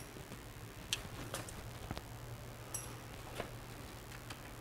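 Faint, scattered small clicks and taps as a GY6 scooter engine's cylinder barrel is handled against the engine, over a steady low hum. There is a short, high chirp a little before three seconds in.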